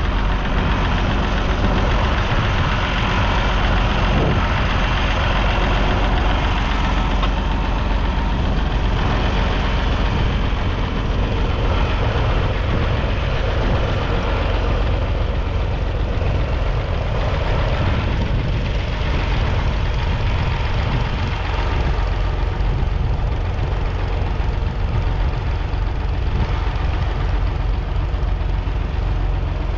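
Massey Ferguson 250's 2.5-litre three-cylinder diesel engine running steadily.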